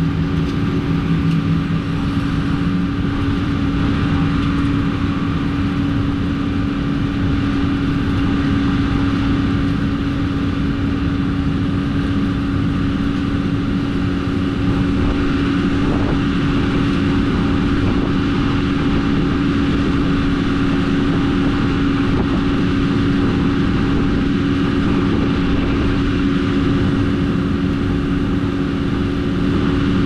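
John Deere combine harvester running in a soybean field: a steady engine and machinery drone with a constant hum over a low rumble.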